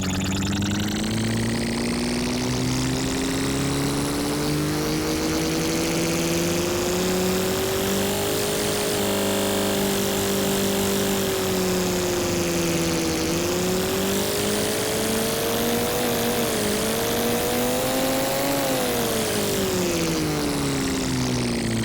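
Synthesized sci-fi spaceship engine from a Phase Plant wavetable patch, with distortion, an octave-down layer and a sweeping comb filter. It is a continuous buzzing drone that glides slowly upward in pitch, dips about halfway, climbs to a peak near the end, then falls away.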